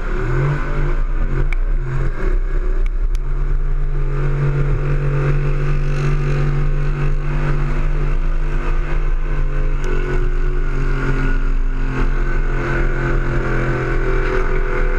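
Nissan Titan's VK56 5.6-litre V8 running hard under load on a truck-pull run. Its pitch wavers for the first few seconds, then holds steady.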